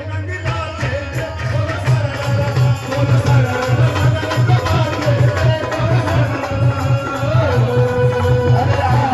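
Music with a fast, steady drum beat under a gliding melodic line.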